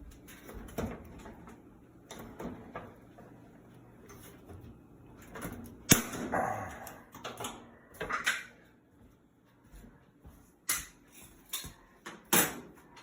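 Hands working the release clips and top panel of a washing machine: scattered plastic and metal clicks, knocks and scrapes, with a sharp snap about six seconds in and several sharp clicks near the end.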